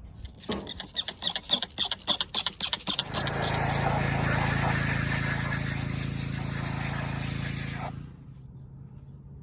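A run of sharp clicks and knocks, then a pressure washer running and spraying for about five seconds, a steady hum under a loud hiss, before cutting off suddenly. The washer is cleaning the stripped Banshee carburetors.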